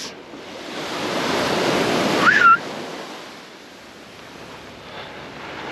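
Surf washing onto a sandy beach: a wave's rush swells to a peak about two and a half seconds in and then ebbs away. A brief high chirp sounds at the peak.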